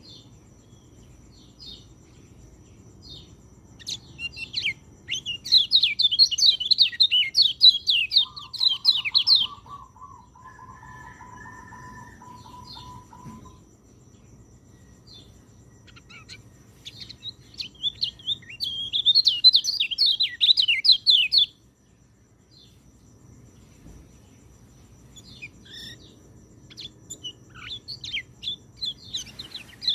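Orange-headed thrush singing: long phrases of rapid, varied, high warbling notes, one early and one in the middle, with another starting near the end. A lower, drawn-out, nearly level note sounds between the first two phrases.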